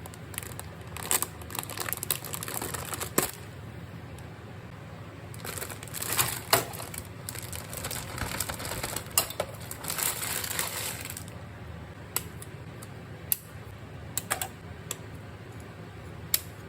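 Light clicks, taps and short scraping and rustling sounds of small plastic model-kit parts and hobby tools being handled, over a steady low hum. The handling is busiest about a second in and from about five to eleven seconds in.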